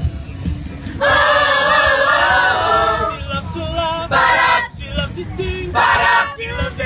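Mixed youth choir singing a cappella in harmony. A held chord lasts about two seconds, followed by two short, loud sung phrases.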